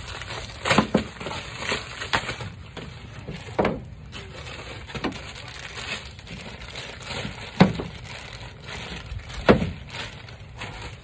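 A small package being opened and handled: packaging crinkling and rustling, with about six sharp crackles or rips spread through.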